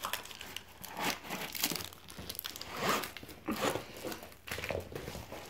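Plastic packaging crinkling and rustling in short, irregular bursts as a diamond-painting kit's plastic-wrapped rolled canvas is handled and lifted out of its box.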